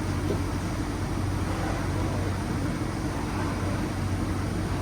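Steady low machine hum with an even noise over it, unchanging throughout.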